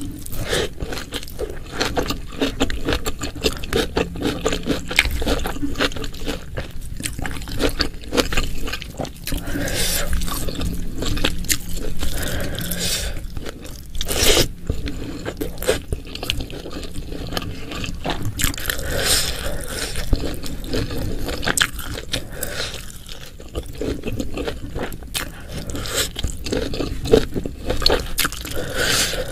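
Close-miked eating sounds: continuous chewing with wet, crackling mouth noises and crunches, as in an ASMR mukbang.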